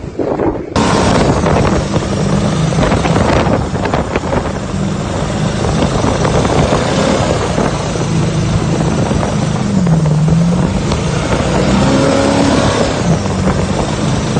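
A motorboat engine running at speed, its pitch wavering, under heavy wind and water noise on the microphone. It starts suddenly just under a second in.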